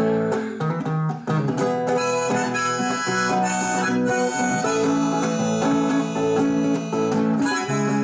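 Harmonica in a neck holder playing a melody of held notes over strummed acoustic guitar, as an instrumental passage between sung lines.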